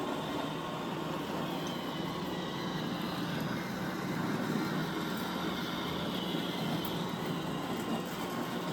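iRobot Roomba robot vacuum cleaning, a steady motor hum and whir.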